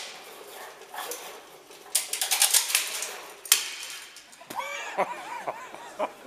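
Clattering and rattling of a model truss tower and the small shake table beneath it as the table shakes the model, coming in bursts, with a dense run of rapid rattling about two seconds in and a sharp knock soon after. Voices follow near the end.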